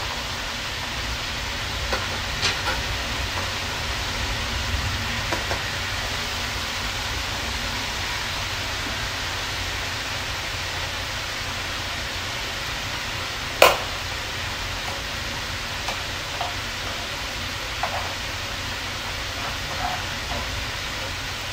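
Steady frying hiss from food in a steel wok on the stove, with a few short clinks and scrapes of a metal spatula stirring in it; one sharp clink about two-thirds of the way through is the loudest.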